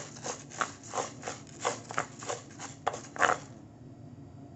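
Wooden spatula stirring raw rice grains in a dry non-stick pan, a rhythmic scrape-and-rattle of grains about three strokes a second: rice being dry-roasted. The stirring stops about three and a half seconds in.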